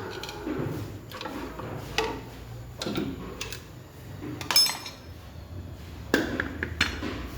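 Metal tools and tractor brake parts clinking and knocking against each other during a brake strip-down: about seven separate sharp clinks, the loudest one ringing briefly a little past the middle.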